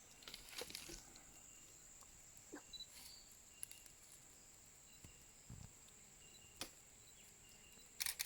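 Faint outdoor ambience: a steady high-pitched insect drone with short, scattered chirps, broken by a few sharp clicks and snaps, the loudest near the end.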